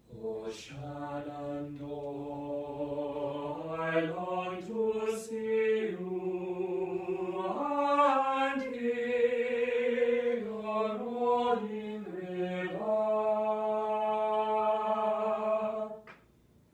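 A choir singing slow, held chords that move in steps from one to the next, cutting off sharply near the end.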